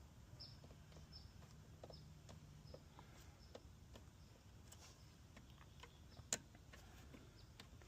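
Near silence with faint, scattered small clicks and ticks, and one sharper click about six seconds in.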